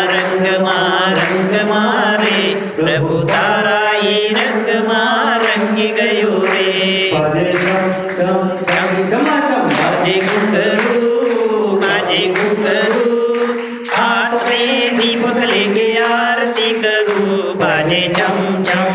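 Hindi devotional song (bhajan) sung through a microphone, with people clapping along in a steady rhythm.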